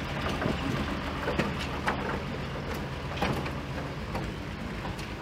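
Old Shaktiman army truck's diesel engine running steadily with a low drone, with a few sharp knocks and clicks scattered through.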